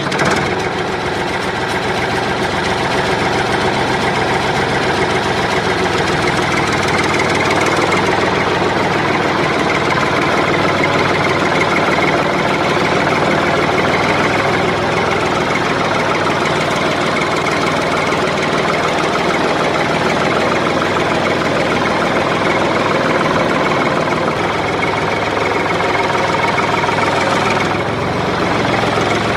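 The small motor of a miniature model tractor starts up and keeps running steadily.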